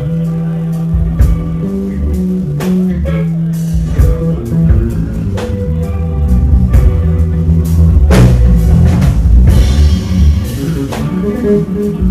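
Live blues band playing: electric guitars and bass over a drum kit, with cymbals louder from about two-thirds of the way in.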